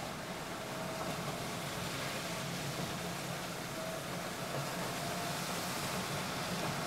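A car driving slowly, heard from inside the cabin: a steady engine hum under the hiss of tyres on a wet, mud-covered road.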